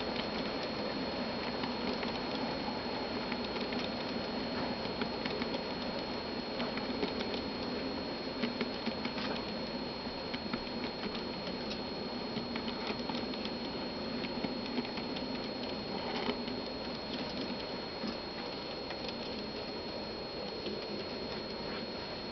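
An N scale model grain train rolling past on its track: a steady rattle of plastic hopper cars with many small, irregular clicks from the wheels on the rails.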